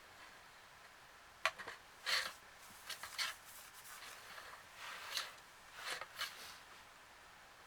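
Kittens playing with a cat teaser wand: a handful of short, scratchy rustles and light taps at irregular intervals, from paws scrabbling and the teaser brushing about.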